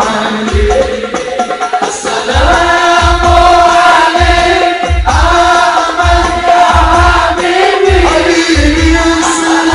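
A man's voice singing sholawat, an Islamic devotional song, through a microphone and PA, with long held notes that bend in pitch. Under it runs a deep drum beat about once a second.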